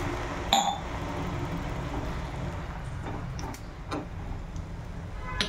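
A metal spoon stirs diced bottle gourd in a pan of curry just after water has been added, over a low steady hum. The spoon clinks against the pan about half a second in, then taps lightly a few times while stirring.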